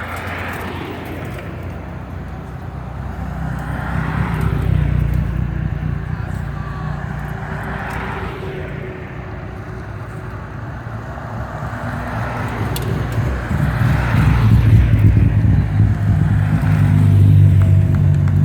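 Hill-climb race cars driving past at low speed one after another, engines running at low revs. Several swells of passing noise come and go every few seconds, and the engines grow louder near the end.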